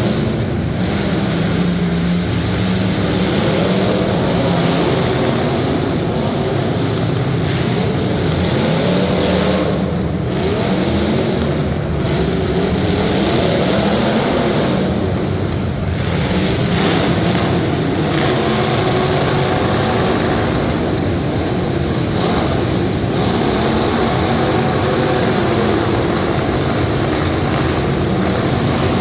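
Several limited-weld demolition derby cars' engines revving together, their pitches rising and falling continuously.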